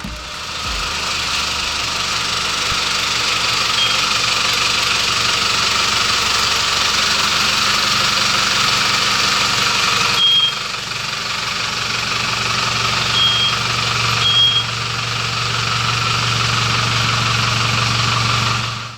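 A vehicle engine idling steadily, with a strong hiss over a low hum and a few short high chirps.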